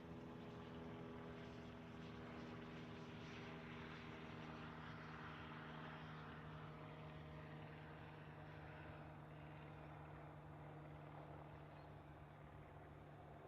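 Faint, steady drone of an aircraft engine, with a hiss that swells in the middle and then fades as it passes.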